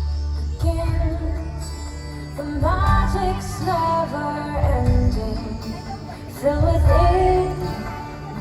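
A show song playing: a woman's voice singing a slow melody over a full musical backing, with deep thuds recurring every second or two underneath.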